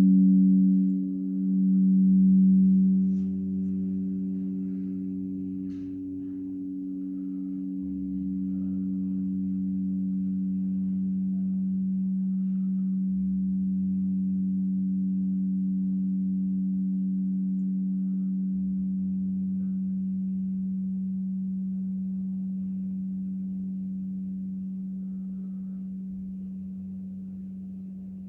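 Frosted quartz crystal singing bowls ringing with a long sustained hum of two steady pitches. The sound swells and wavers over the first few seconds, then holds and slowly fades away.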